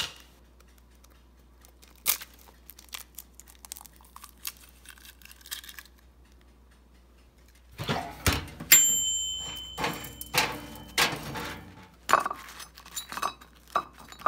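Kitchen utensils and dishes being handled: scattered clicks and clinks, then a busier clatter about eight seconds in. Its loudest knock is followed by a brief ringing tone, as of a struck bowl.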